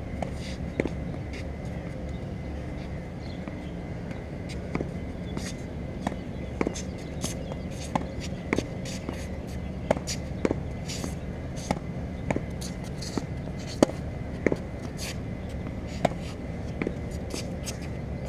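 Tennis ball being rallied against a practice backboard on a hard court: a run of sharp pops from racket strikes, bounces on the court and hits off the wall, about one every half second to a second, with scuffing footsteps over a steady low background noise.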